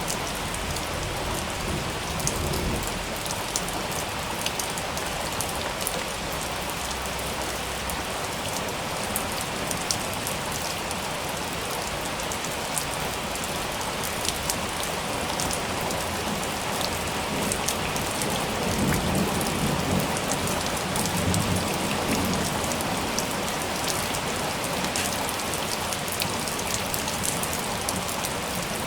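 Steady heavy rain falling, with many sharp individual drop hits close by. A low rumble of thunder rolls in about two-thirds of the way through and fades after a few seconds.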